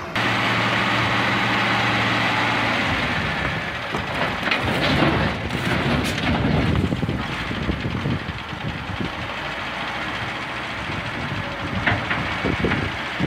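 Dump truck engine running steadily under load as the tipper body rises. After about four seconds, large stone blocks scrape, grind and knock as they slide out of the raised bed against the steel frame.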